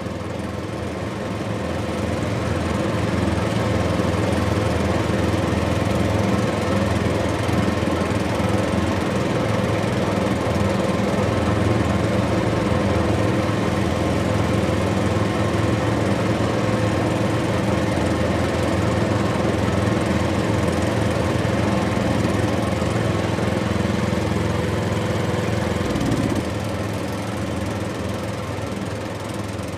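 Diesel engine of a Liebherr R 984 crawler excavator running steadily as the machine works onto a lowboy trailer. It gets louder over the first few seconds and drops back a little near the end.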